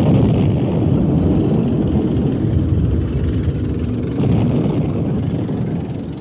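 War-film battle sound effects: a loud, dense low rumble of engine and combat noise, like a helicopter over a battlefield, easing off slightly toward the end.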